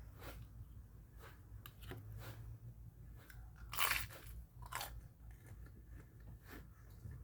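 Close-up chewing and biting into deep-fried chicken nuggets, a run of crisp crunches from the extra-crunchy breading, the loudest crunch about four seconds in.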